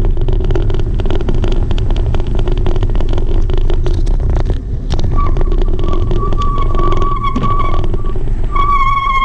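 Wheels rolling over a wooden boardwalk: a steady rumble with a rapid clatter from the planks, and wind on the microphone. About halfway through a steady high whine joins and grows louder near the end.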